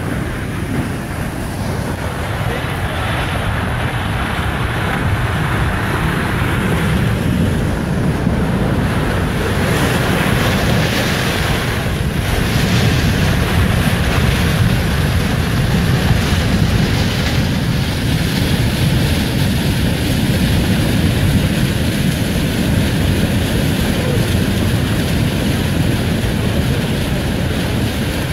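A flash-flood debris flow of grey mud and rocks surging down a stream channel: a loud, steady, deep rushing.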